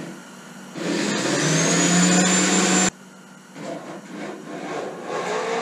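Corded electric drill driving a stainless screw into a wooden boat thwart: the motor spins up with a rising whine, runs hard for about two seconds, then stops suddenly. Quieter, irregular work sounds follow near the end.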